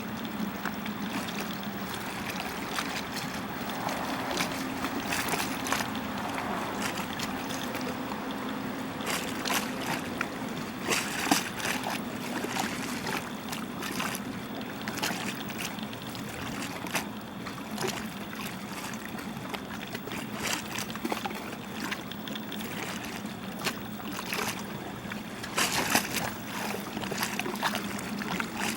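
Flowing river water with a steady low hum under it, broken by frequent short, sharp clicks.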